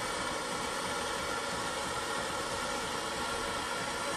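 Small flame-heated model heat engine running with its flywheel spinning, the propane torch heating it giving a steady hiss.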